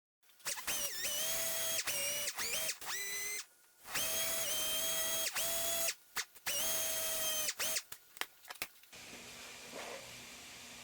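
Power drill running in several stop-start runs of one to three seconds, its motor whine sagging briefly in pitch within the runs, followed by a few short blips. A fainter steady hum follows from about nine seconds in.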